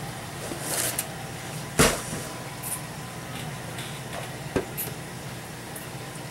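Handling noises as a heavy LED aquarium light fixture is lifted out of its box and set on a wooden stool: a rustle, then one loud thump about two seconds in, then a few lighter knocks and rustles.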